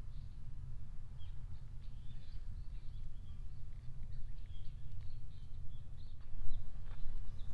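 Small forest birds chirping, many short high calls scattered throughout, over a steady low rumble of wind on the microphone. A few footsteps on leaf litter come in near the end.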